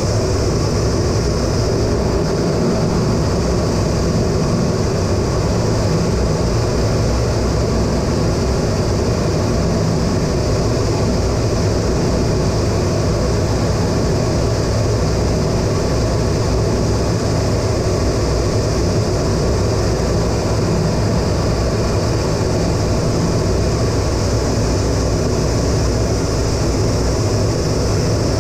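Steady cockpit noise of an A-10 Thunderbolt II in flight: its twin General Electric TF34 turbofans and the airflow heard inside the cockpit, a constant rush with a high whine over it.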